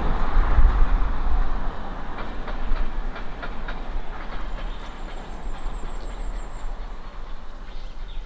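Wind buffeting the microphone outdoors: a rumbling, hissing gust that eases after about two seconds into a lower, steady rush, with a few faint ticks and a brief faint high whistle near the middle.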